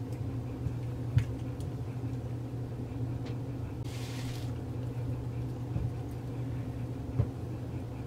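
Faint, scattered light clicks of small screws and a hex key being handled while refitting a dropper post's end cap, over a steady low hum, with a short rustle about four seconds in.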